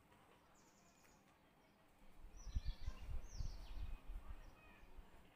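A few short, falling bird chirps in the background. From about two seconds in, irregular low bumps and rubbing as a pen writes on a notebook page.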